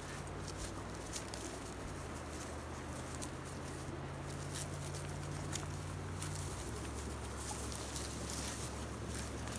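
Rustling and crackling through dry grass and brush, with scattered light clicks, as terriers and their handler move through it.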